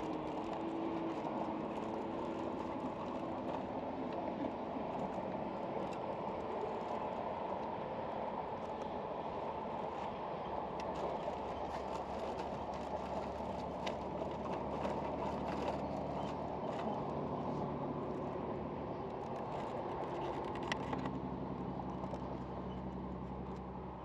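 A motor running steadily under a rushing noise, with scattered light ticks. A low hum comes in about halfway through and grows stronger near the end.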